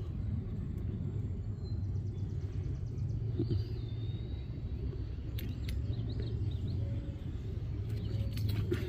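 Steady low rumble of outdoor background noise, with a faint short chirp about three and a half seconds in and a few light clicks later on.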